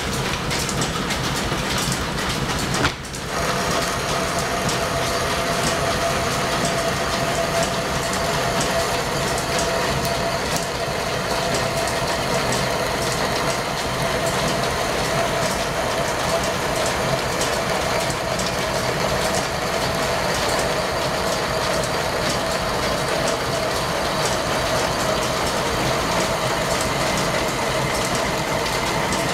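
Antique flat-belt line-shaft-driven lathe running steadily while single-point cutting a thread on a steel steam-engine valve rod, a continuous machine noise with a steady tone in it. It briefly drops out about three seconds in.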